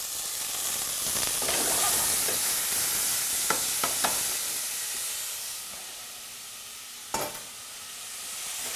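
Frozen blueberries sizzling in a hot saucepan of shallots and garlic in olive oil, the hiss swelling over the first two seconds and then dying down. A few light clicks near the middle and a knock about seven seconds in.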